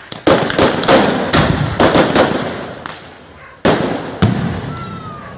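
Fireworks going off: a rapid string of firecracker bangs and crackling through the first two seconds or so, fading, then two loud single bangs from aerial shells near the four-second mark, and a brief whistle near the end.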